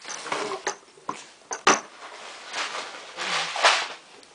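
Plastic Lego pieces clicking and clattering as they are handled and knocked together, with several sharp clicks in the first two seconds and a couple of breathy rushes of noise later on.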